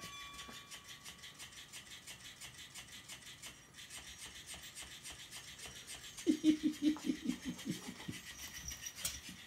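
Flippity Fish cat toy's small battery motor buzzing, flapping the fish in a fast, even rhythm. A short voice-like sound comes in about six seconds in.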